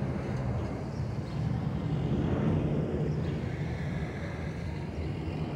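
Twin-engine jet airliner passing high overhead: a steady low rumble of its engines.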